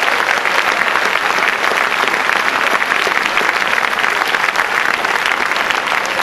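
A large audience applauding: many people clapping at once in a steady, dense patter.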